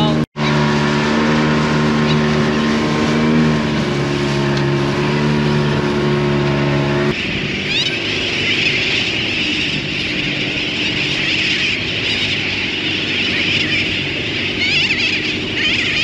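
Outboard motor of an inflatable dinghy running steadily, its pitch dropping about four seconds in as it slows. About seven seconds in this gives way abruptly to a large seabird colony, many birds calling at once in a constant high clamour.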